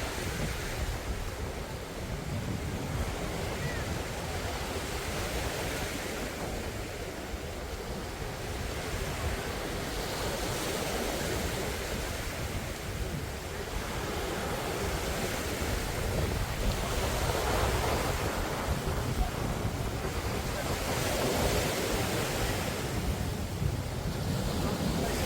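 Surf washing onto a sandy beach, the noise swelling and easing every few seconds, with wind buffeting the microphone as a steady low rumble.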